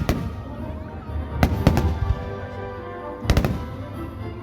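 Fireworks display shells bursting: about half a dozen sharp bangs, mostly in close pairs, with booming low rumble between them. Music plays underneath throughout.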